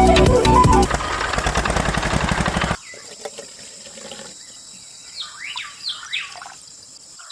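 Background music fades out in the first few seconds and then cuts off. After that come a few short bird chirps over a faint trickle of water poured from a cup into a small plastic tub.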